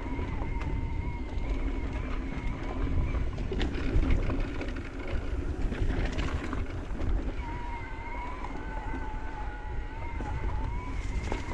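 Electric mountain bike's mid-drive motor whining under pedal assist, its pitch wavering slightly, over wind rush on the microphone. Sharp rattles and knocks from the bike on rough trail come a few seconds in.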